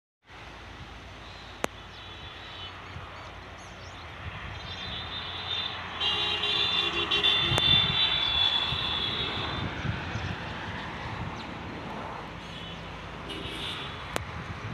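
A motor vehicle passing by, its noise growing louder to a peak about halfway through and then fading away, with a few sharp clicks.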